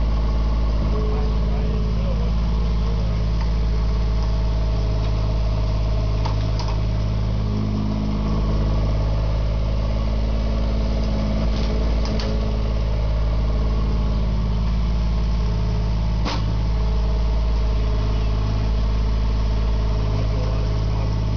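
Small engines of a micro excavator and a tracked skip-loading dumper running steadily while the excavator digs and loads, the engine note swelling and easing at times. A few sharp knocks stand out above it.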